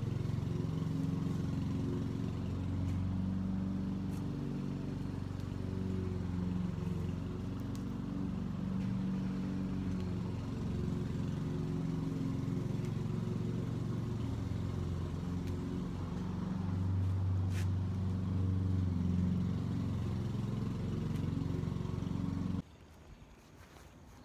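Steady low engine hum, like a motor vehicle running nearby, with a pitch that wavers slowly; it cuts off abruptly near the end.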